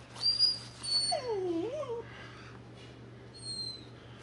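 Dog whining and yelping: thin high-pitched whines near the start and again near the end, with a lower whine that dips and then rises in pitch about a second in.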